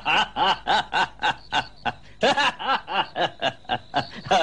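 A man laughing in a long run of rhythmic 'ha' pulses, about four a second, with a short break about two seconds in.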